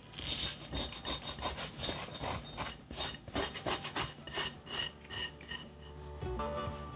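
Shaggy flour-and-water dough being scraped out of a glass mixing bowl onto a silicone dough mat: an irregular run of short rubbing, scraping strokes that eases off about six seconds in.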